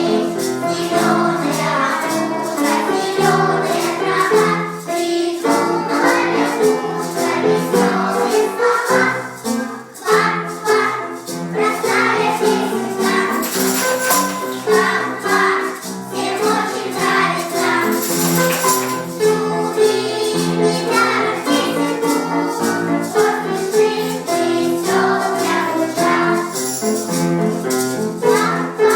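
Children's choir singing a song in unison to a rhythmic percussion beat, with a brief break in the singing about ten seconds in.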